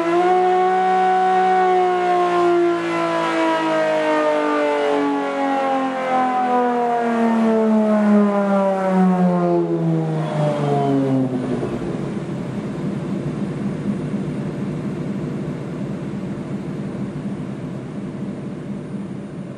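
Nissan-based Sodemo race engine running on a dynamometer test bench. Its revs wind steadily down over about ten seconds, then it settles into a steady low-speed run that fades out near the end.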